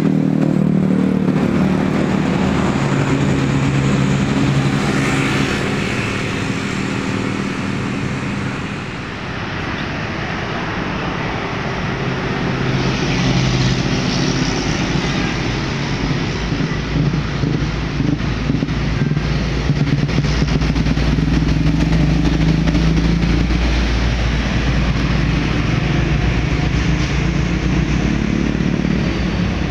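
Road traffic passing close by: a large bus's engine at the start, then vans, motorcycles and trucks, with tyre noise throughout. A heavy cargo truck's deep engine rumble builds through the second half.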